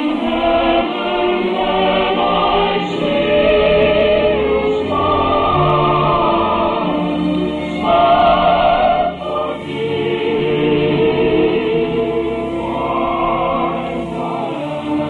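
A choir singing with orchestral accompaniment, several voices with vibrato holding long notes, on an old radio broadcast recording.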